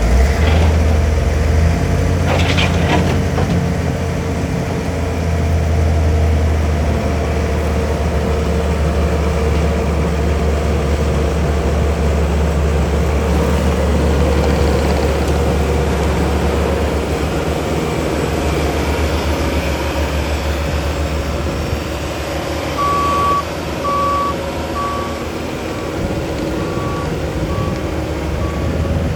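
Bobcat T740 tracked skid steer's diesel engine running steadily. Its backup alarm beeps about once a second in the last six seconds as the machine reverses.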